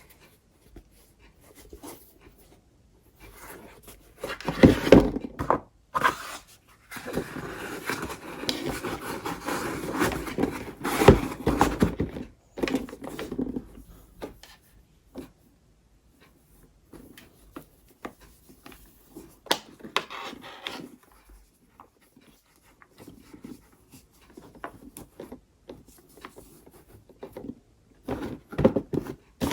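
Hands handling a pair of sneakers and their packaging: bursts of rustling and scraping with scattered light knocks and clicks. The longest rustling comes a few seconds in and lasts several seconds, then quieter handling follows.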